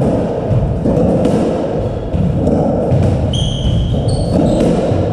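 Squash rally on a wooden court: the ball being struck and thudding off the walls, with players' footfalls. Shoes squeak sharply on the floor a few times in the second half.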